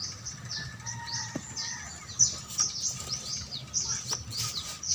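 Young bird-of-prey chicks begging to be fed, giving a rapid run of short, high-pitched falling chirps, with a few sharp clicks among them.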